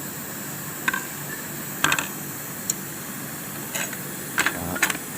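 Short, scattered metal clicks and clinks from the needle plate and its fittings being worked loose and handled on a Kansai waistband sewing machine, over a steady background hiss.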